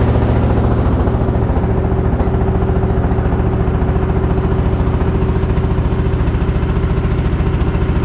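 A small boat engine running steadily at a constant speed, loud and close, with a fast, even pulse.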